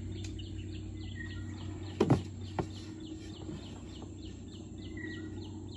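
Birds chirping in a fast, evenly repeating pattern over a steady low hum, with a short whistle twice. Two sharp knocks about two seconds in stand out as the loudest sounds.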